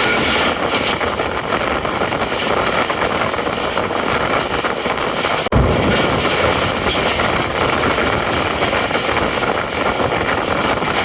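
Moving express passenger train: a steady, loud rush of wind and running noise, dropping out for an instant about halfway through.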